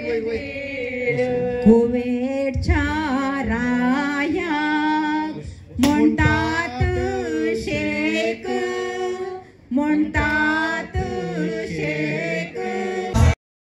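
Voices singing a song, with a few low thumps along the way; the singing cuts off abruptly near the end.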